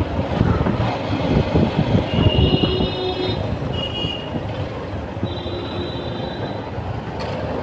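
Street traffic heard from a moving two-wheeler, a steady rumble of engines and wind. A vehicle horn beeps three times: a blast of about a second, a short toot, then another blast of about a second.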